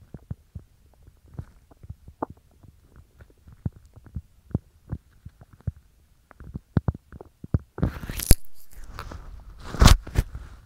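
Upset, bloated stomach gurgling: a run of small popping and clicking gut sounds. Two louder scratchy bursts come in the last few seconds.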